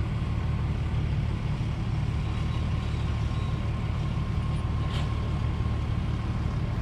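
Steady low engine rumble heard from inside a pickup truck's cab, with a single light click about five seconds in.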